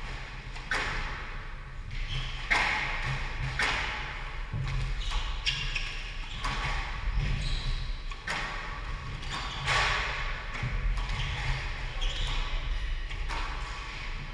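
Squash rally: sharp smacks of the ball off the rackets and the court walls, about one a second, echoing in the court, with short squeaks of shoes on the wooden floor between hits.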